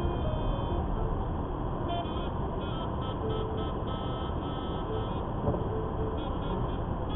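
A car's cabin noise while it drives slowly: a steady low rumble of engine and tyres on the road. Faint music plays over it.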